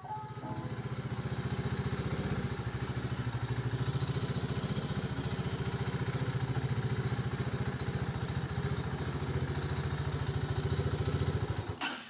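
Motorcycle engine idling with a fast, even pulse, then stopping abruptly near the end as the bike stalls while being parked.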